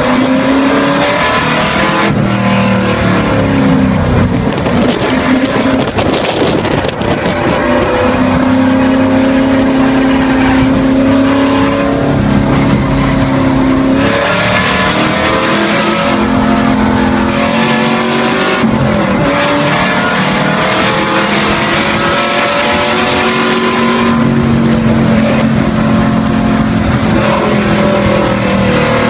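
Race car's V8 engine heard from inside the stripped cockpit under hard acceleration. Its pitch climbs, then breaks and drops every few seconds through upshifts and lifts for corners, over wind and road noise.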